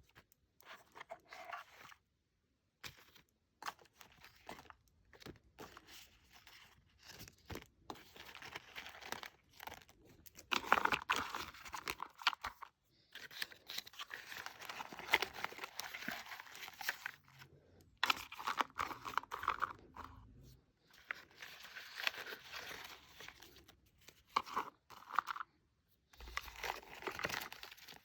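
Packaging being handled and unwrapped: crinkling and tearing in irregular bursts, with small clicks and knocks between them.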